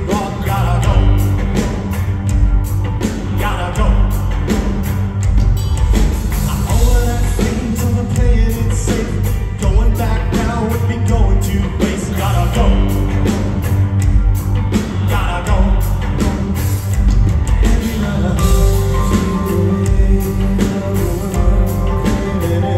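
Loud live rock music through a concert PA: a male voice sings in phrases over electric guitar, keyboards and a steady drum beat, with the boom of a large hall.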